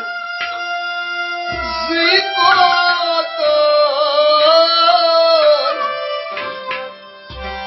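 Kashmiri Sufi devotional song: a man singing over steady sustained harmonium chords, with a bowed string instrument alongside. There is a deep thump about a second and a half in and another near the end.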